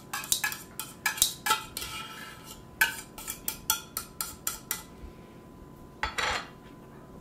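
A metal fork clinking and scraping against an opened tuna can and a bowl as tuna is worked out of the can: a quick run of sharp metallic taps for about five seconds, then a short scrape about six seconds in.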